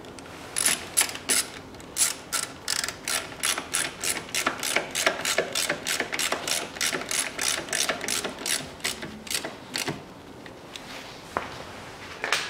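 Hand ratchet wrench clicking as a bolt is screwed down to secure a car's coolant expansion tank: a steady run of sharp pawl clicks, about three a second, that stops about ten seconds in, followed by a couple of single clicks.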